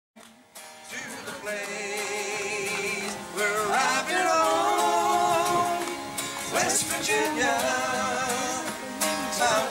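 Acoustic guitar strummed from silence, with a man's voice singing along from about three and a half seconds in, where the sound grows louder.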